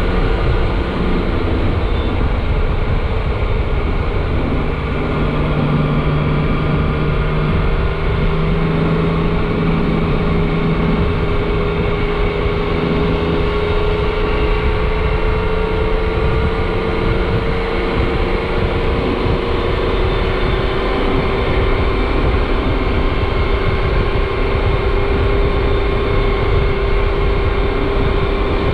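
Yamaha Tracer 900 GT's inline three-cylinder engine at a steady road cruise through a Yoshimura R-77S exhaust, its note slowly rising in pitch as the bike gathers speed. Heavy wind rushes over the microphone.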